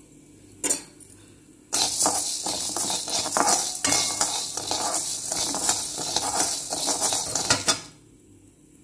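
A metal spatula stirring and scraping dry chana dal and urad dal around a metal kadai, the lentils rattling against the pan in a dense run of clicks and scrapes for about six seconds. It starts after a single short clink and stops sharply near the end.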